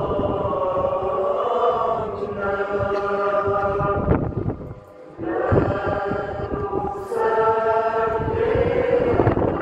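Voices chanting a slow liturgical hymn in long held notes, with a short break about halfway through. This is the singing during a blessing with the Blessed Sacrament.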